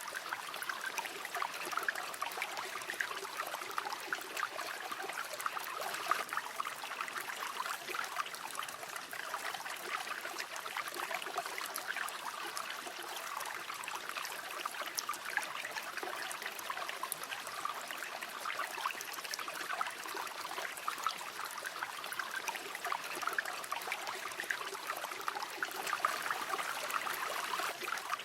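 A shallow river or stream running steadily, with a constant babble and trickle of water over stones.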